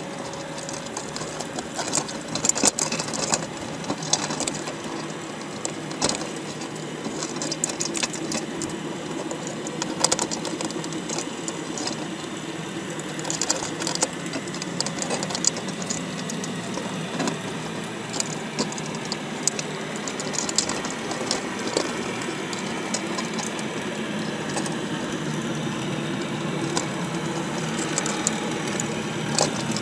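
A machine running steadily, with irregular sharp clicks and clatter over it.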